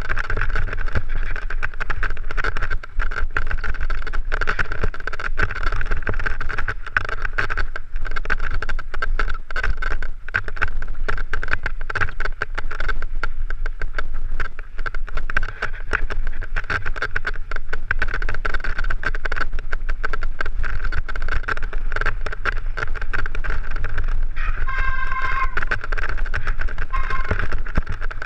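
Mountain bike ridden over a rough, stony moorland track, heard from a helmet-mounted camera: wind rumbling on the microphone over a constant clatter and rattle of the bike on the ground. Near the end a short, high, pitched squeal sounds for a couple of seconds.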